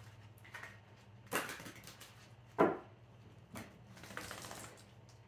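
Tarot cards being handled: a few short, sharp card snaps and slaps, the two loudest about a second and a half and two and a half seconds in, as a card is drawn from the deck and laid on the table. A low steady hum runs underneath.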